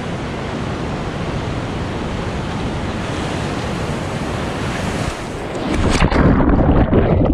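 Ocean surf washing over a stony shore, with wind buffeting the microphone. About six seconds in there is a sudden loud splash and churning water as a person slips on a stone and falls head-first into a breaking wave. The sound turns muffled as the camera goes under.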